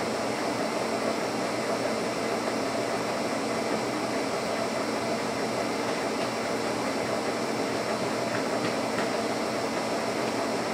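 Lucas 41 horizontal boring mill running, a steady mechanical hum from its drive with several steady tones, during a boring job on a cast steel quick coupler. A few faint ticks come about eight to nine seconds in.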